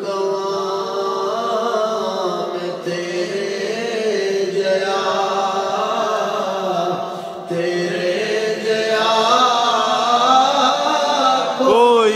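A man singing a naat, a devotional poem to the Prophet, in long drawn-out notes with no words picked out, held steady at first and turning to wavering, bending phrases in the last few seconds.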